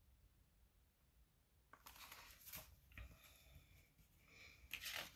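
Near silence, then faint rustling of a picture book's paper pages being handled and turned from about two seconds in.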